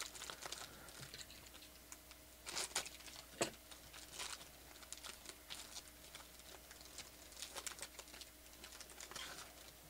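Foil trading-card pack crinkling and tearing as it is opened by hand: faint, irregular crackles and clicks, with a few sharper crinkles about three seconds in.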